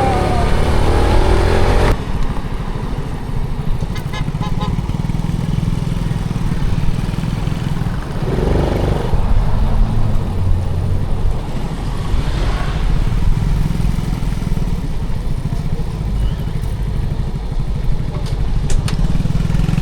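Motorcycle engine running steadily as the bike is ridden along the road, a loud low rumble throughout.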